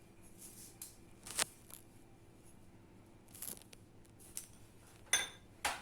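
A few short clinks and scrapes of a spoon against a bowl as salt is added to raw prawns, the last pair near the end with a brief metallic ring.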